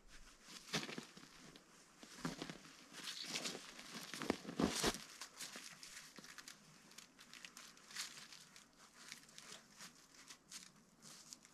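Irregular crinkling and crunching as chicken wire is handled and boots shift in the snow, loudest about four to five seconds in.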